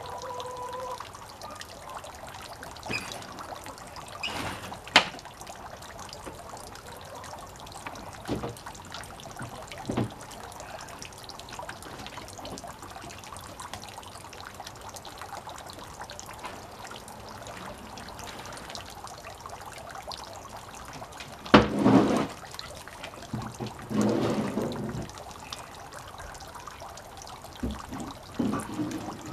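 Steady trickling of water, with a few knocks and bumps now and then; the loudest comes about three-quarters of the way in.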